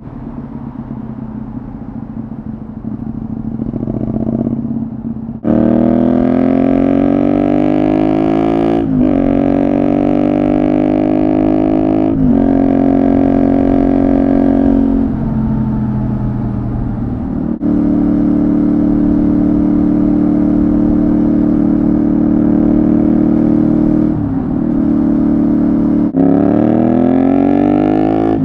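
Honda VTR250's 90-degree V-twin through a Moriwaki full exhaust system, running under load. It is lower for the first few seconds, then picks up sharply and climbs in pitch, dropping back at each of about three upshifts. It then holds a steady pitch for several seconds and rises again near the end.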